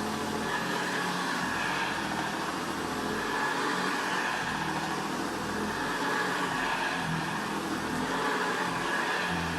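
Vacuum cleaner motor running steadily, a constant whirring hum.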